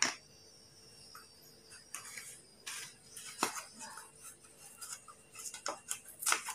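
The last slate pencils clatter onto a paper plate right at the start, then light rustles and a few scattered clicks as a small cardboard box of Cat brand slate pencils is handled and the next one picked up.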